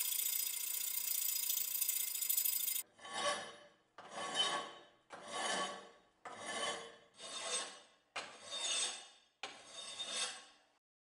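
Hand file rasping across steel clamped in a bench vise: a steady scrape for about three seconds, then seven separate push strokes, about one a second, each swelling and fading.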